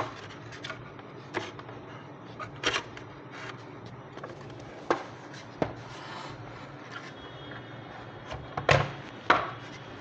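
Scattered sharp clicks and knocks of hard parts and tools being handled, about a dozen, with two louder knocks close together near the end.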